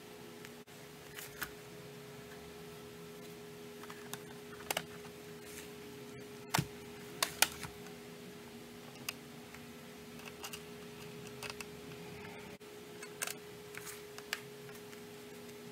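Scattered clicks and light knocks as hands turn over a homemade metal instrument case and pick small screws off a work mat, over a steady faint hum. The sharpest clicks come in clusters about halfway through and again near the end.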